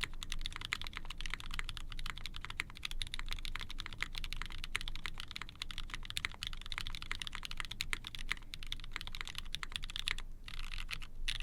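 Fast typing on an Ori-Club CLS-2 mechanical keyboard with lubed, diamond-polished Tofu linear switches in a POM plate under GMK keycaps. A dense, continuous run of keystrokes, with a brief pause near the end.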